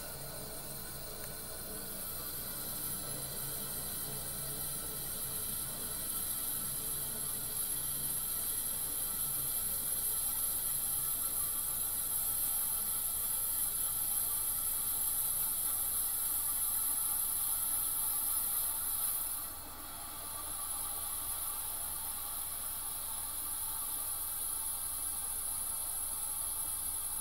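Tecumseh AJM compressor of a vintage Fedders window air conditioner running steadily: a low hum under a constant high hiss, dipping briefly about two-thirds of the way through.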